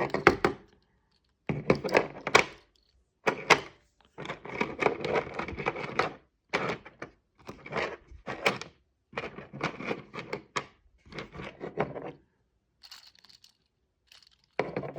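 Plastic fidget rings clicking and knocking together in the hands as they are snapped together and handled: irregular clusters of sharp clicks with short pauses between them.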